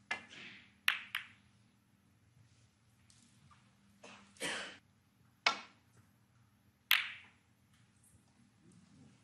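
A snooker cue tip strikes the cue ball, and a string of sharp clicks of snooker balls knocking together follows, about six in all, spread over the next seven seconds.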